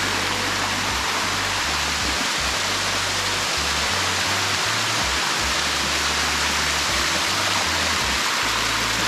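Waterfall water rushing over rock close by, a steady hiss of falling and running water.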